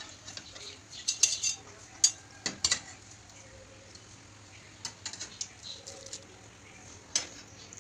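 Wire skimmer and perforated steel spoon clinking against an aluminium kadhai and against each other as fried potato strands are lifted out of the oil. The sound is scattered light metallic taps: a few about a second in, two or three between two and three seconds, a small group near five seconds and one more near seven.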